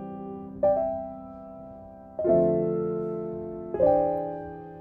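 Slow, gentle piano music: chords struck about every second and a half, each left to ring and fade before the next.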